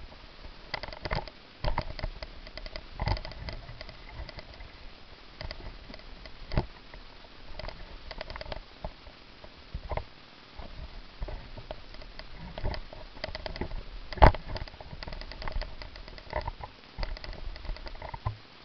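Irregular rustling, clicks and knocks from a plastic two-litre soda bottle being handled and set on a small wooden stand in dry grass, with one sharp knock about fourteen seconds in.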